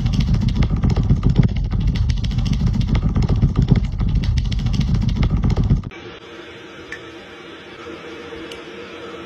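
A dog scrambling and digging in bedding: loud, rumbling rustling and scratching with many small thumps. About six seconds in it cuts off suddenly, leaving a quieter steady hum.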